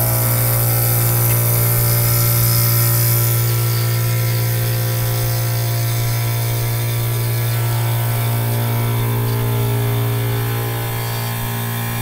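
Central air-conditioner condenser unit running: a steady low hum from the compressor, with several higher steady tones and a rush of fan air over it.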